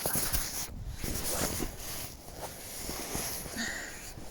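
Irregular rustling with scattered knocks and clicks as an insulated horse rain sheet is handled and put on a horse.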